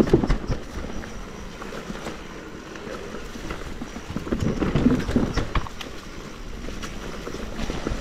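Mountain bike riding down a rough trail: tyres rolling over dirt and stones, with irregular knocks and rattles from the bike over the bumps.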